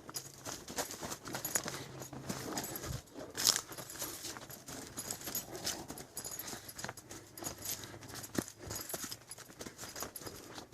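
Footsteps of a hiker walking on a trail: an irregular run of short scuffs and crunches, with one louder step about three and a half seconds in.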